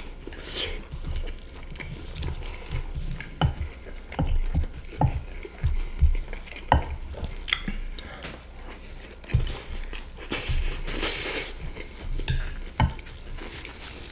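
Close-miked mukbang eating sounds: chewing of chicken stroganoff with rice and crispy shoestring potato sticks, with spoons and a fork clinking and scraping on the plates in many short knocks. A stretch of crackly noise comes about ten seconds in.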